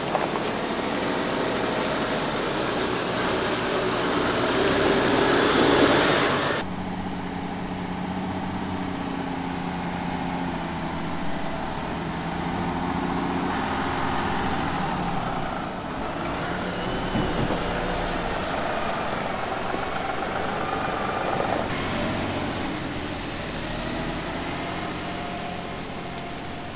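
A Mercedes-Benz Arocs 8x8 tipper truck's diesel engine running as the truck drives off-road. The sound swells over the first six seconds, then changes abruptly to a quieter, steadier engine note.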